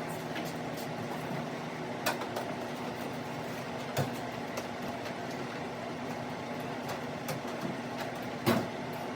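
Swamp cooler running steadily with a low hum, broken by three short knocks as gear is handled, the loudest near the end.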